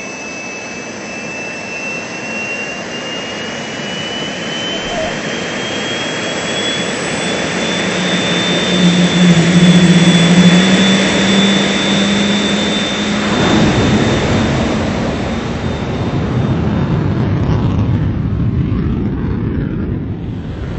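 F-15 fighter's twin jet engines spooling up with a whine that rises slowly in pitch, growing louder to a peak about halfway through as the afterburners light for takeoff. After that comes a broad rushing rumble that fades as the jet climbs away.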